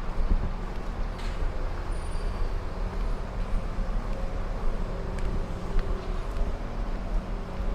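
A construction machine's engine running steadily with a low rumble, with a few faint clicks.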